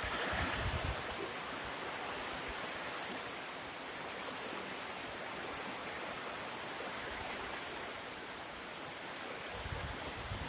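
Steady rushing of hurricane wind and rain through trees. Low buffeting on the microphone comes in the first second and again near the end.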